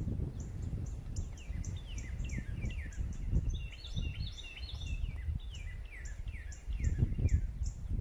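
Woodland birds singing: many short, quick downslurred chirps repeated throughout, with a burst of higher, busier notes from a second bird around the middle. A low, gusty rumble runs underneath.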